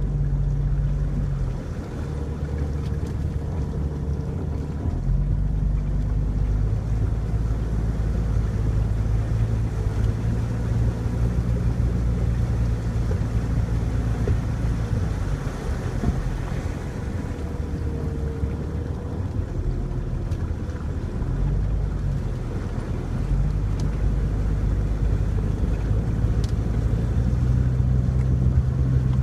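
Jeep Cherokee XJ's engine and tyres on a dirt road: a low engine drone over steady rumbling noise, its pitch shifting up and down several times with the throttle.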